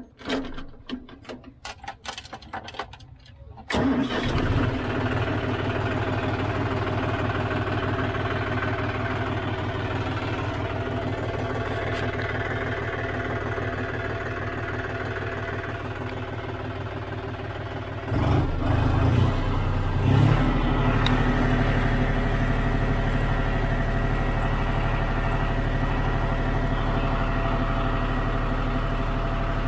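John Deere 5039D tractor's three-cylinder diesel engine starting about four seconds in and idling steadily. Around eighteen seconds in it is revved up to a louder, higher steady speed of about 1500 rpm.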